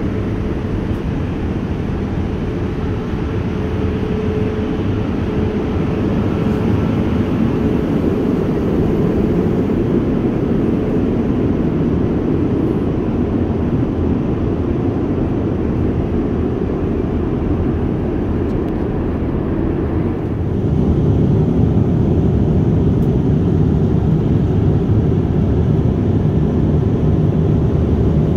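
Steady low roar of airliner cabin noise inside a Boeing 787-9 in flight, getting louder about two-thirds of the way through.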